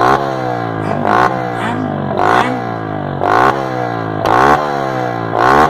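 Motorcycle engine revved in repeated blips through a polished exhaust, about once a second: each time the pitch jumps up sharply, then sinks back slowly toward idle.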